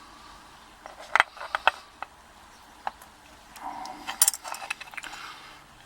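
Small metal lock parts of a dismantled Corbin euro cylinder being handled: several sharp metallic clicks and taps, then a rustle with a quick cluster of clicks about four seconds in.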